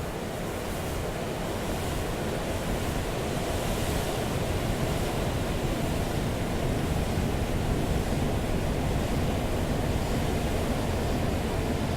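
Processed beach recording of wind and ocean surf: a low, steady rush of noise that swells over the first few seconds and then holds.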